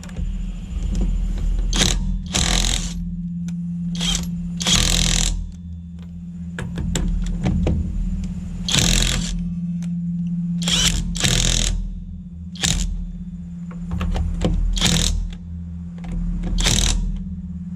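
Cordless 1/2-inch impact wrench running on a wheel's lug nuts. It hammers in about ten short bursts, with a steady motor hum running between them, as it loosens the nuts.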